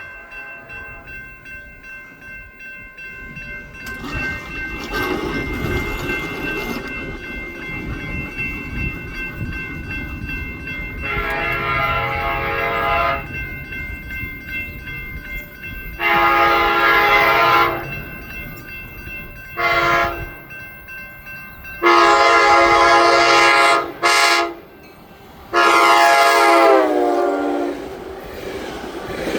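ACE commuter train approaching a grade crossing and sounding its horn: a long, a long, a short and a long blast, then a brief blip and a final long blast that drops in pitch as the train passes. A crossing warning bell rings steadily throughout, and the rumble of the train grows as it nears.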